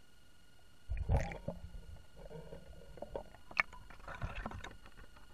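Water splashing and gurgling right against a camera at the water surface: a sudden splash about a second in, then irregular sloshing for a few seconds.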